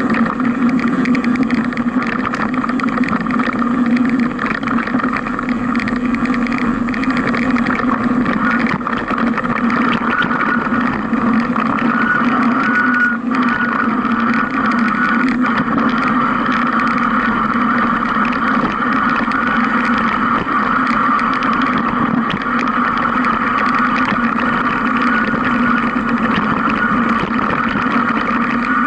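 Steady riding noise of a mountain bike rolling down a dirt singletrack: tyre rumble, rattle and wind, picked up by a camera mounted on the bike or rider, as an unbroken drone.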